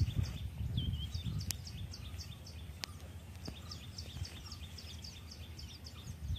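Outdoor ambience: a bird chirping in a fast, even run of short high notes, about four a second, over low rustling that fades in the first second. A couple of sharp clicks.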